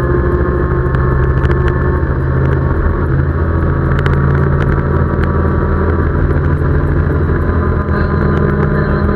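Side-by-side UTV engine running steadily at cruising speed, heard from on board, with a few light clicks and rattles.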